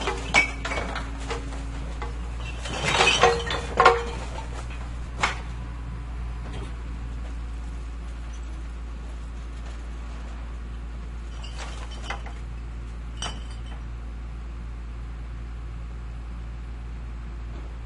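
Garbage truck engine idling low and steady while a garbage container is handled. Over the engine comes a burst of clattering and clinking about three to four seconds in, with scattered clinks and knocks before and after.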